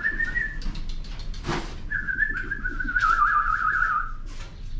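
Whistling: a short warbling whistle, then a longer one of about two seconds that wavers and slowly sinks in pitch, with a brief knock between them.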